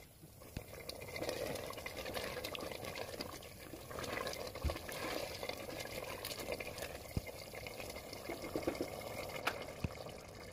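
Goat meat curry bubbling and simmering in an open pressure cooker pot, with scattered sharp clicks and knocks as a silicone spatula stirs it through.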